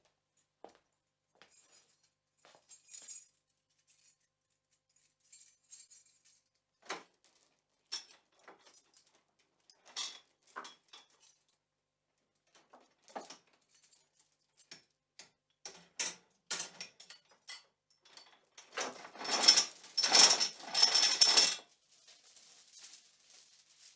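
Padlock and chain being handled: scattered small metallic clicks and clinks, then a louder rattle of chain links lasting about three seconds near the end.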